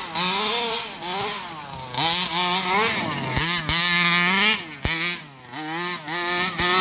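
Rovan Q-Baja 1/5-scale RC buggy's 29cc two-stroke petrol engine revving up and dropping back again and again as it is driven.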